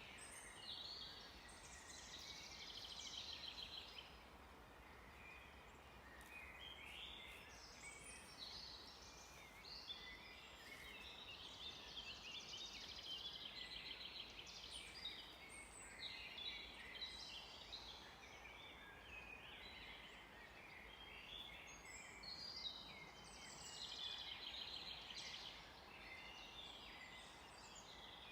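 A faint chorus of several songbirds singing at once, overlapping high chirps and rapid trills, over a steady soft background hiss.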